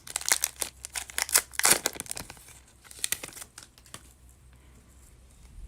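Football trading-card pack wrapper being torn open and crinkled by hand: a dense run of crackles that thins out about halfway through and has almost stopped in the last second and a half.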